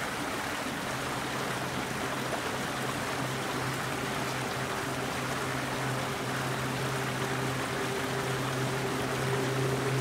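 Steady rush of flowing water, like a stream, with a low steady hum joining about a second in.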